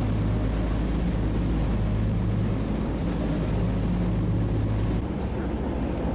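Party fishing boat's engines droning steadily under way, with the rush of wind and the churning wake over it. About five seconds in the steady drone gives way to a rougher low rumble.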